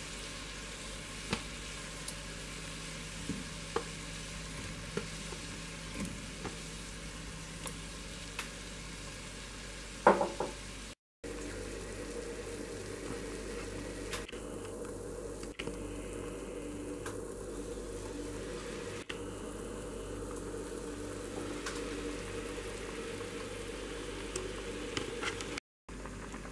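Sugar water bubbling at a boil in a pan, with a few small splashes as apple pieces are dropped in during the first ten seconds and a louder splash about ten seconds in; afterwards a steady simmer of the pan full of apples.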